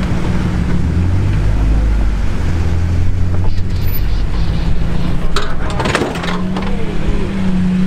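Off-road Jeep engines running at low revs while crawling over rock, the pitch rising and falling as the throttle is worked. A short cluster of sharp cracks and knocks comes a little past the middle.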